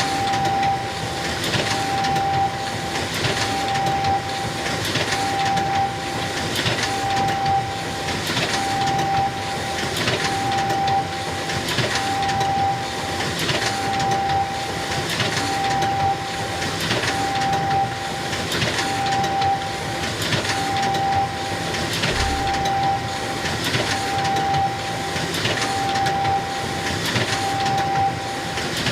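Xerox photocopier running continuously in a steady repeating cycle. A short tone and a rush of noise come round together about every second and three-quarters, as it makes copy after copy.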